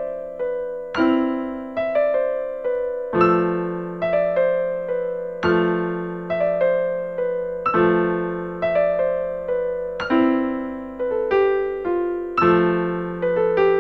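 Background piano music: slow, gentle notes struck one after another at an even pace, each ringing and fading over a low note that keeps returning.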